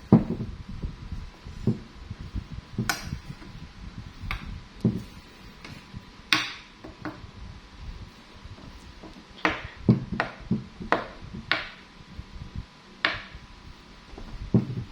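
Irregular light taps and clicks of small objects being handled on a tabletop, about a dozen spread unevenly, with a cluster of several close together about ten seconds in.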